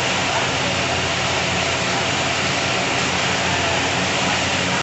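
Pressure-washer jet hissing steadily as it sprays water over a motorcycle, over a steady motor hum.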